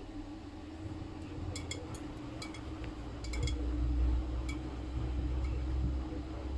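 Miele W Classic front-loading washing machine in its main wash, the drum tumbling the laundry over a steady motor hum. Light clinks sound in the first half, and a deeper rumble swells about three seconds in as the drum turns.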